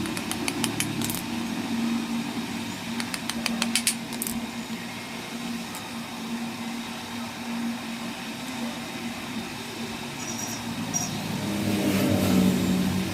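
A car engine running steadily at idle, with bursts of rapid metallic clicking about a second in and again around three to four seconds in.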